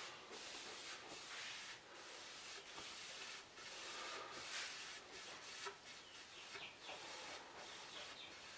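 Dye stain being applied by hand to a mahogany surface: faint, irregular swishing strokes, roughly two a second.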